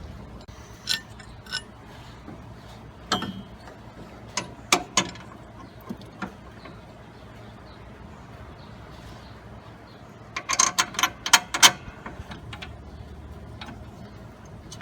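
Hand tools on metal while bolts are backed out: scattered sharp metallic clicks and clinks, then a quick run of ratchet clicks about ten seconds in.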